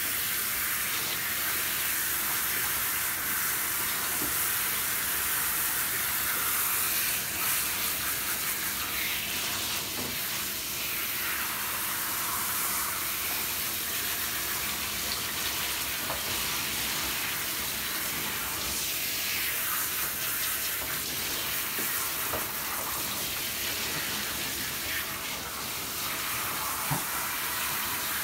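Water spraying from a handheld shower head onto two wet puppies in a bathtub: a steady hiss of spray that runs on without a break.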